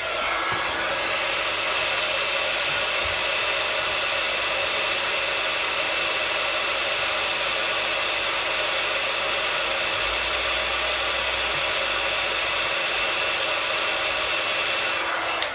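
Heat gun blowing hot air steadily, a loud hiss with a faint steady whine, switching off at the very end. It is heating a phone's vibration motor to free it.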